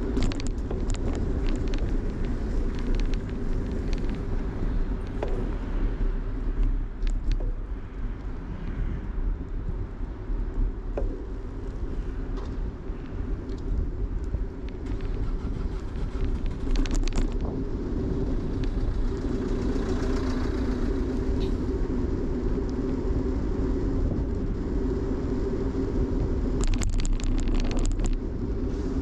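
Steady rumble of a bicycle ride on city streets, with short bursts of clicking and rattling a few times.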